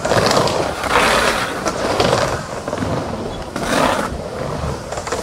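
Skateboard wheels rolling on a wooden bowl. The rumble swells and fades about once a second as the skater carves up and down the walls.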